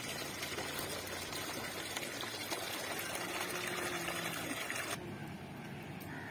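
A stream of water pouring from a pipe into a half-full metal pot, a steady splashing into standing water that cuts off suddenly about five seconds in.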